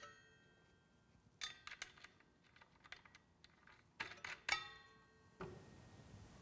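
Short clusters of small metallic clicks and clinks from a circular saw's blade wrench and arbor bolt as the blade bolt is snugged up, some with a brief ring. They come about a second and a half in and again about four seconds in.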